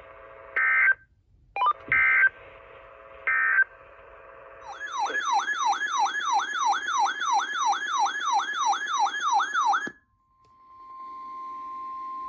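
Emergency Alert System tones: three short, harsh digital data bursts, then a warbling alert tone that sweeps upward in pitch about three times a second for five seconds. It is followed by a steady single tone near 1 kHz, the NOAA Weather Radio 1050 Hz warning alarm tone.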